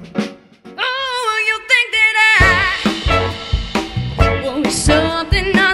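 Live pop-soul band with a horn section: the band breaks off, a lone sung phrase holds a few notes with vibrato, then the full band crashes back in about two and a half seconds in, with drums and bass on a steady beat under trumpet and baritone sax.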